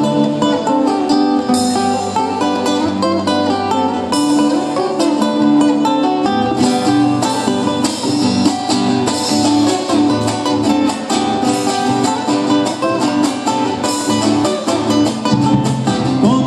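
Acoustic guitars playing a picked and strummed instrumental introduction to a folk song, live on stage. A lower rhythmic part joins about six seconds in.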